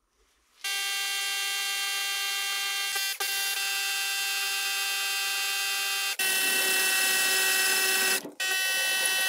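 Cordless drill running at a steady, high-pitched whine as it drills a 3 mm hole, starting about half a second in. After a break about six seconds in it runs again, a little louder, drilling the hole out with a 5 mm bit, and stops briefly near the end.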